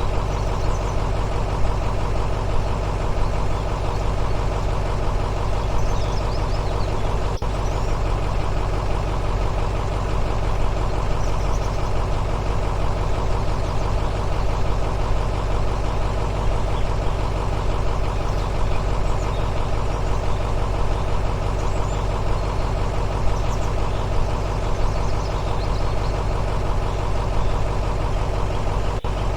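Steady engine idling sound with a fine even pulse, as from an RC excavator's engine-sound unit, with a single click about seven seconds in.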